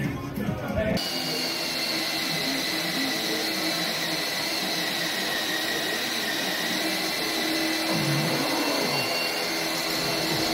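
Background music for about the first second, then a handheld power tool running continuously with a steady high whine.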